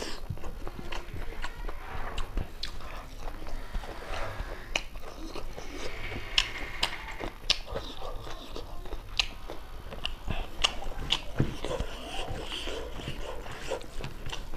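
Close-up eating sounds of a person chewing rice and pork curry eaten by hand: irregular mouth smacks and sharp clicks, a few every second.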